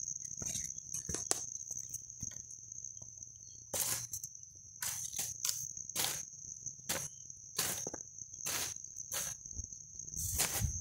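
Hand hoe blade chopping into and scraping soil in irregular strokes, roughly one a second, while weeding between cassava plants. Under it an insect, cricket-like, calls with a steady high-pitched trill.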